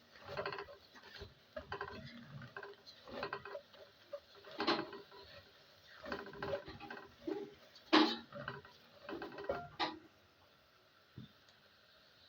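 Spoon stirring and scraping onions and dry spices around a cooking pot: irregular scrapes and knocks that stop about ten seconds in.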